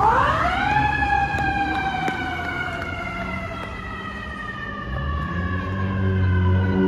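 Fire engine's siren winding up sharply in the first second, then slowly winding down in pitch. A low rumble swells in over the last couple of seconds.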